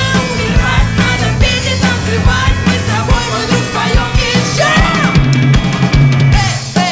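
A rock song playing, with a steady drum beat, bass and a sung melody over it.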